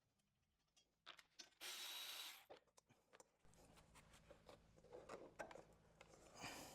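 Faint hand-tool work on engine housing bolts: scattered clicks of a socket or wrench on metal, and a brief scraping rasp about two seconds in.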